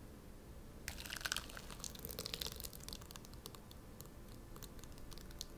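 Thick blended pear-and-onion purée pouring onto sliced raw beef in a glass bowl, a wet splattering for about two seconds, then a few scattered drips and clicks.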